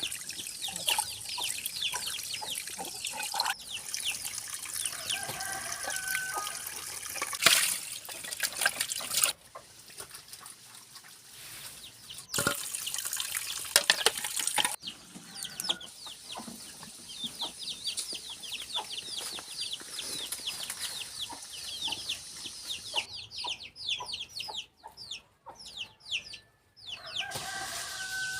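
Chickens clucking, with many quick, high, falling cheeps repeating throughout; the sound breaks off abruptly several times.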